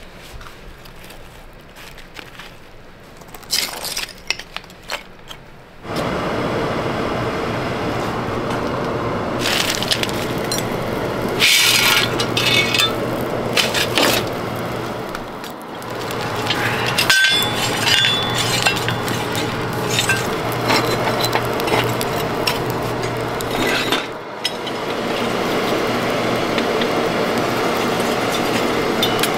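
Coal forge being lit: first a few light clicks and crackles of kindling, then about six seconds in a steady rush of forced air through the burning coal starts suddenly with a low hum, and it keeps going. Metallic clinks and cracks sound over it as coal and iron are shifted in the fire.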